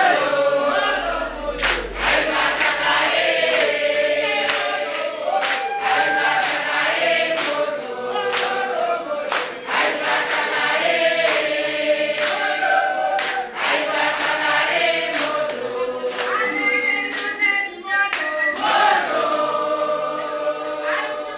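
A group of voices singing a song together without instruments, led by a woman, with people clapping their hands along.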